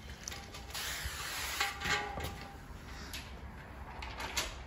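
Sheet of window tint film rustling and crinkling as it is pulled off the glass and handled, strongest in the first couple of seconds, with a few sharp clicks and light knocks, one louder near the end.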